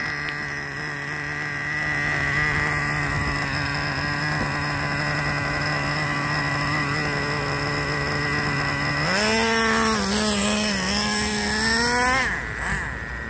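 Traxxas TRX 3.3 nitro engine of an RC truck, newly broken in and tuned, running steadily, then revving up about nine seconds in for some three seconds before easing off.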